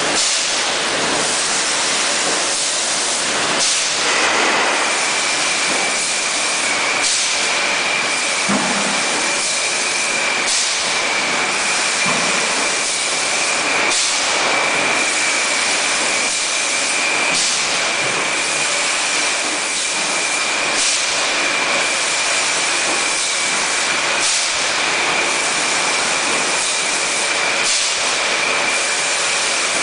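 Machinery of a 6-litre PET bottle filling line running: a steady hiss of compressed air and mechanical noise, joined about four seconds in by a steady high whine, with a faint click about every three and a half seconds.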